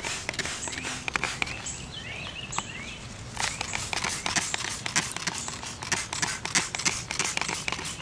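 Hand-pump trigger spray bottle being worked over and over, spraying coil cleaner onto the fins of an HVAC evaporator coil: a quick, uneven run of clicks and spritzes that grows denser about three seconds in.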